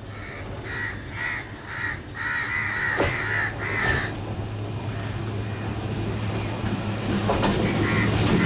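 A crow caws about five times in quick succession over the first four seconds. Under it, the steady hum of an electric multiple unit local train grows louder as the train approaches, and sharp wheel clicks come in near the end as the train starts to pass.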